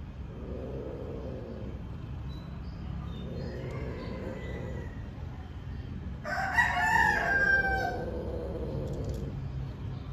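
A rooster crowing once, about six seconds in, one loud call lasting under two seconds.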